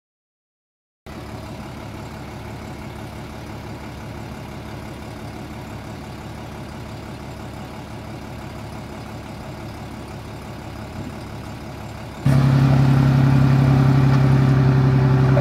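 Diesel engine of heavy construction machinery running steadily. About twelve seconds in it cuts abruptly to a much louder, closer engine hum with a strong steady low drone.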